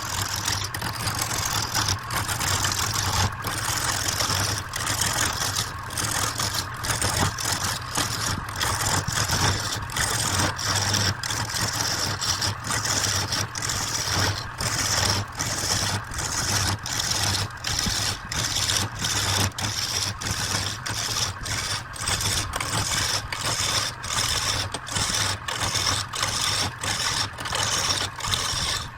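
Wood lathe running, with a steady hum and the hiss of a turning tool cutting the spinning wood, broken by short regular dips.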